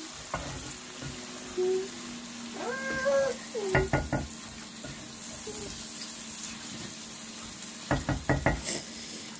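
Wooden spoon stirring fried fish and onions in a pot over a low sizzle, knocking against the pot in two quick clusters, about four seconds in and again near the end. A short high-pitched call sounds about three seconds in.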